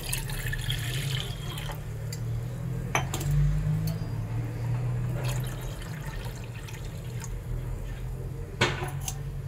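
Water pouring from a jug into an aluminium saucepan for about the first two seconds, over a steady low hum. Two sharp knocks follow, about three seconds in and near the end.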